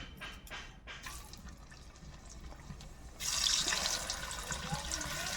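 Boiled potatoes frying in hot oil in a kadai: a steady sizzle with small crackles, which turns suddenly louder and brighter about three seconds in.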